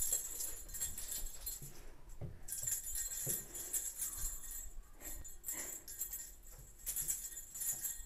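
Small bell on a cat wand toy jingling as the pompom is swung and batted by a Bengal cat, with a brief break about two seconds in.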